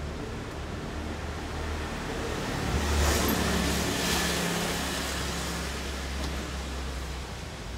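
A motor scooter passes close by. Its engine note swells about three seconds in and fades out a couple of seconds later, over a steady low rumble of street traffic.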